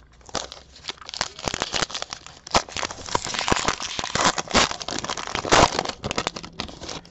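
A foil baseball-card pack wrapper being crinkled and torn open by hand. It is a dense run of crackling and crinkling with many sharp snaps, loudest in the middle and dying away just before the end.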